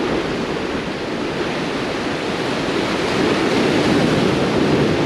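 Ocean surf breaking and washing over jetty boulders, a steady rush of white water that builds a little about three seconds in.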